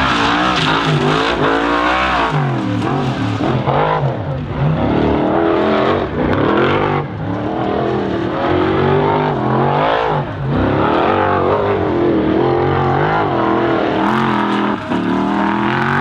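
Formula Offroad buggy's engine revving hard, its pitch sweeping up and down again and again as the driver accelerates and lifts off, with brief dips in loudness three times.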